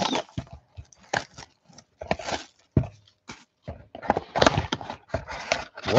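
A Panini Prizm football card pack being handled and opened by hand: scattered sharp clicks and short crinkling rustles of the wrapper and cards, with brief pauses between them.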